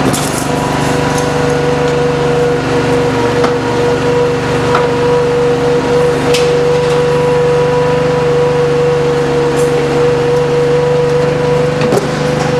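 16-hp V-twin Briggs & Stratton gas engine running steadily as it drives the tire baler's hydraulic pump through the bale discharge cycle, with a steady whine over it. A sharp knock comes near the end.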